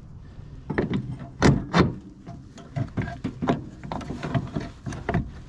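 Irregular clinks and knocks of metal parts being handled while a brake master cylinder is worked off and onto the brake booster and its steel brake lines. The clinks start about a second in.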